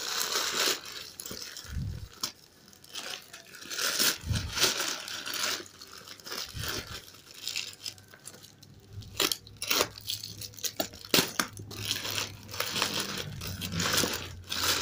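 Black plastic bag wrapping crinkling and tearing in irregular bursts as hands pull and cut the parcel open.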